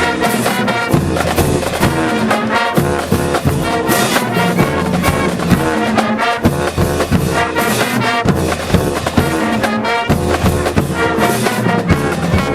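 High school marching band playing a loud, brass-heavy tune with trumpets, trombones and drums beating a steady rhythm.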